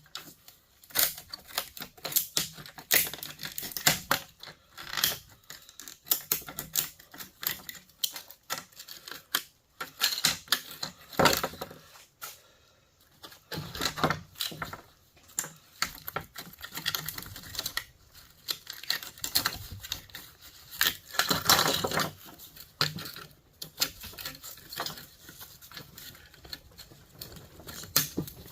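Irregular clicking and clinking of hand tools and small metal parts as a line conditioner is taken apart for scrap, with a busier stretch of rattling about three quarters of the way through.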